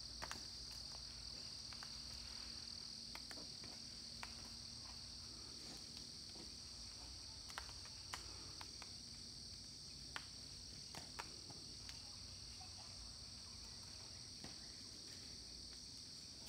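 Steady, high-pitched insect chorus, with a few short faint clicks here and there.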